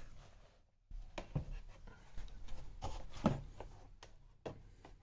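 Handling noise as a flat-screen monitor is moved about by hand: a few light knocks and rubs, the loudest knock a little past the middle.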